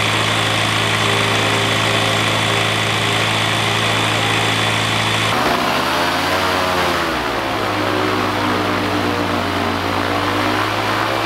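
Rotax 912 ULS flat-four aircraft engine with its propeller running steadily on a test stand, then about halfway through revving up and settling back down as the throttle is pumped, with a smaller rev near the end. The throttle is pumped during break-in to load the brand-new piston rings against the cylinder walls.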